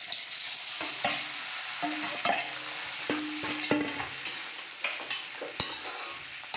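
Boiled potatoes sizzling as they hit hot oil and fried spices in a wok, while a metal spoon scrapes and clanks against the pan, stirring and breaking them up. Among the scrapes there are short metallic rings and one sharp clack about two-thirds of the way in.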